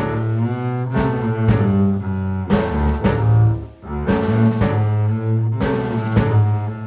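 Background music: low sustained bass and string notes over a steady beat.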